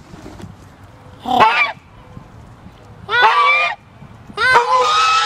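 A white Chinese goose gander honking at close range: three loud calls, about a second in, about three seconds in, and a longer one near the end.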